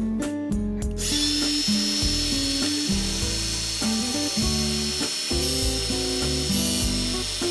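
Small angle grinder running with a steady high whine and hiss, coming in suddenly about a second in, over plucked guitar music.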